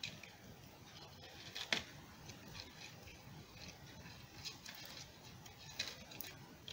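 Dry twigs and wrapping ribbon being handled as a small bundle of sticks is tied together: faint rustling with a few light clicks, the clearest one about two seconds in.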